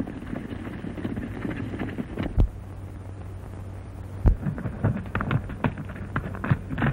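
A horse galloping on a dirt trail, a rapid, irregular run of hoofbeats over the hiss of an old optical film soundtrack. Two heavier thumps stand out, about two and a half seconds in and again a couple of seconds later.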